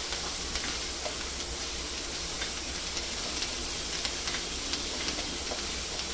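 Chopped onion and green bell pepper sizzling in a lightly oiled non-stick pan, a steady hiss, while a spatula stirs them, with light irregular clicks and scrapes against the pan.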